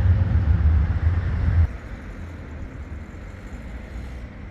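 Outdoor city street noise with a heavy low rumble that drops away suddenly about a second and a half in, leaving a quieter background hum.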